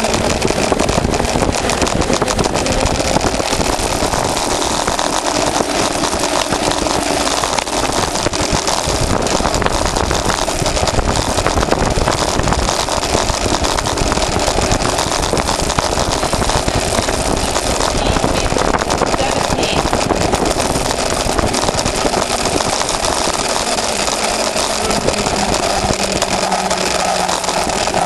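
Soap box derby cart coasting downhill on asphalt, heard from a camera mounted on the cart: a steady rolling rumble and rattle from its hard wheels and body, with wind noise, and no engine.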